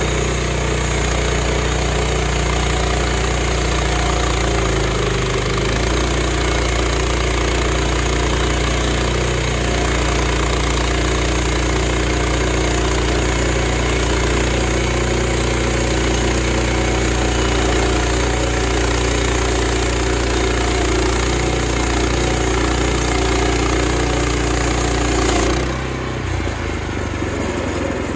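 Wood-Mizer LX25 band sawmill sawing through a pine log, its 9.5-horsepower Kohler engine running steadily under load with the band blade's sawing noise over it. About 25 seconds in the sawing noise drops away as the blade clears the cut, leaving the engine running.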